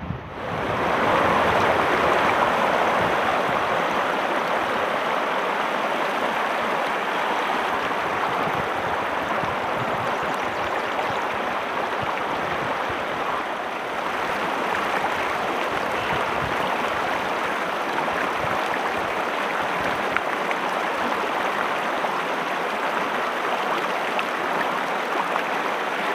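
A stream rushing steadily, its flowing water a continuous noise.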